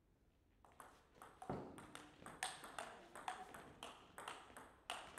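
Table tennis rally: the plastic ball clicking sharply off the rubber bats and the table in quick alternation, several clicks a second, starting with the serve about a second in.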